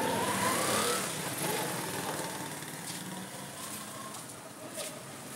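A motorbike engine rising in pitch through the first second, then fading away, with a few faint clicks near the end.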